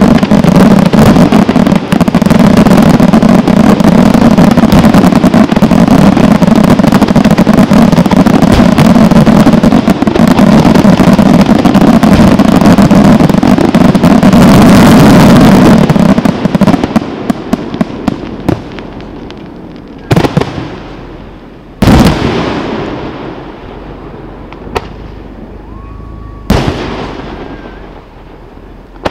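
Aerial fireworks: a dense, unbroken barrage of shell bursts and crackling for about sixteen seconds. It then dies away into three separate loud bangs, each with a trailing rumble.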